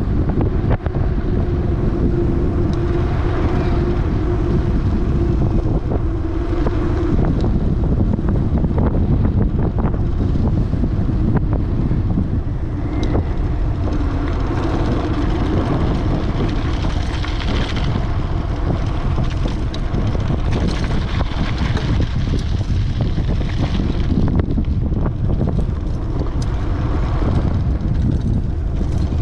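Strong wind buffeting the microphone during a bicycle ride: a steady, loud low rumble, with a faint steady hum under it for the first several seconds.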